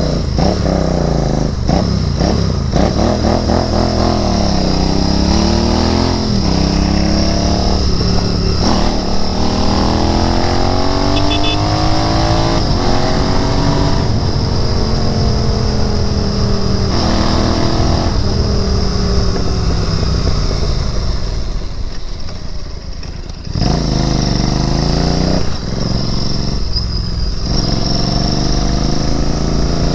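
Royal Enfield Interceptor 650's parallel-twin engine under way, repeatedly climbing in pitch as it accelerates and dropping back at each gear change. About 22 seconds in it eases off and goes briefly quieter, then pulls up through the revs again.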